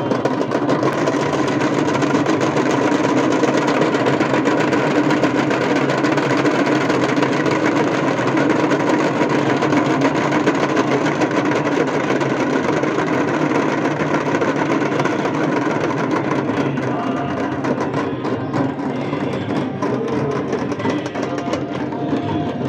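Drums and large brass cymbals played together in a continuous, dense rhythm for a Ganga aarti.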